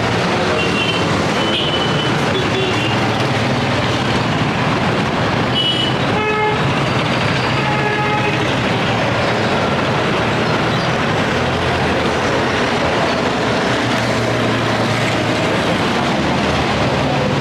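Steady road-traffic noise, with a vehicle horn tooting briefly about six seconds in and again about two seconds later.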